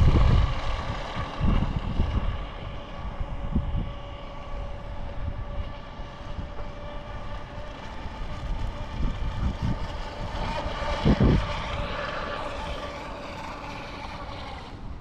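WLtoys WL915-A RC jet boat's brushless motor whining steadily as the boat runs on the water, with small shifts in pitch as the throttle changes. It is loudest in the first few seconds, then fainter.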